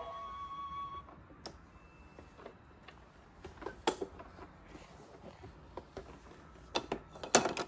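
Plastic toys on a baby activity center clicking and knocking as they are handled, a few scattered knocks with the loudest cluster near the end. A held electronic tone from the toy's tune cuts off about a second in.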